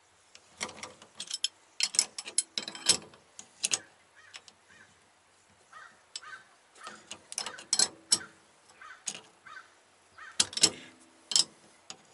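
Hand wrenches clicking and scraping on a coilover's top mounting nut as it is tightened while the shaft is held, in irregular bursts of metal clicks with a few short creaks.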